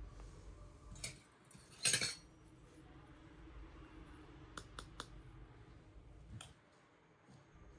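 Small steel pieces of a miniature kitchen set clicking and clinking as they are handled: a louder clatter about two seconds in, then a few light clicks.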